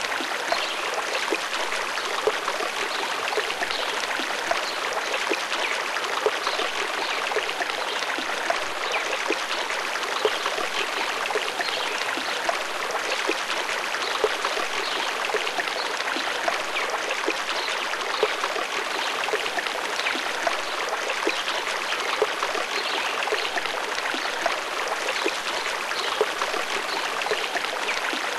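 Running water: a steady, even rush with fine splashes.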